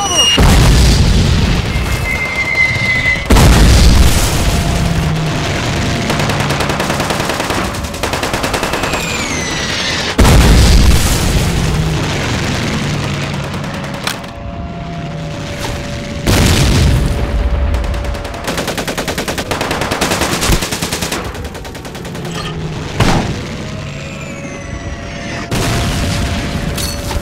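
Battle sound effects: several heavy booms, long bursts of rapid gunfire and machine-gun fire, and whistles falling in pitch, over background music.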